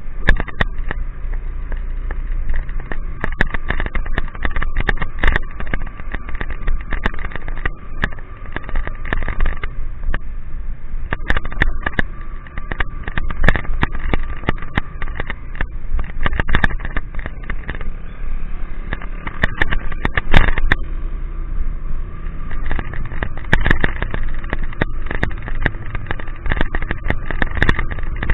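Riding through the rain with the camera out in the open: a steady low wind and road rumble on the microphone, with raindrops clicking and crackling against the camera throughout.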